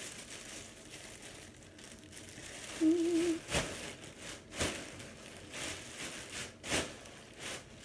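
Several short crinkling, rustling handling noises, with a brief wavering hum about three seconds in.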